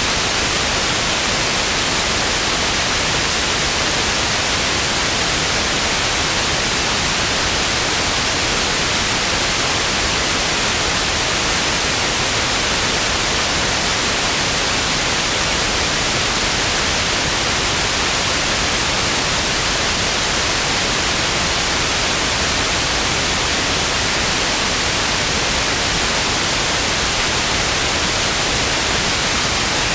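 Television static: a steady, loud hiss of noise across the whole range, brightest in the high frequencies, with no change.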